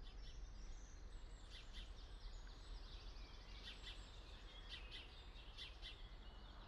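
Faint birdsong: several small birds chirping, with short rising and falling whistles and a quick trill about halfway through, over a steady low outdoor rumble.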